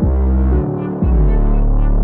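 Background music with a deep, sustained bass line and synthesizer-like tones.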